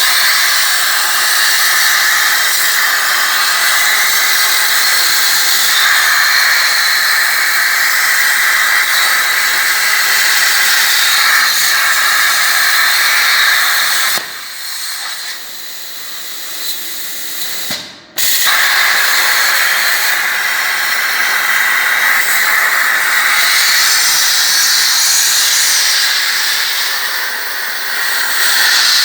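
Plasma cutting torch on a CNC table hissing steadily as it cuts sheet metal. The hiss drops to a lower level about halfway through, cuts off sharply a few seconds later, then starts again at full strength as the arc restarts.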